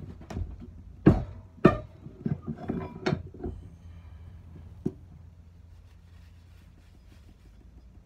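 Metal clanks and knocks as an axe is freed from a cast-iron bench vise. There are two sharp clanks about a second in, then a quick run of lighter knocks with a faint metallic ring, and one last knock about five seconds in.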